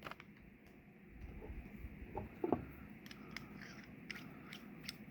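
Faint clicks and light taps of small stainless quick-connect fittings and a chemical injector being handled and set in place, with a couple of soft knocks about two and a half seconds in.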